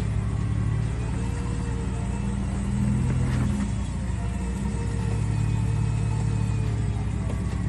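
Truck engine running at idle, a steady low drone.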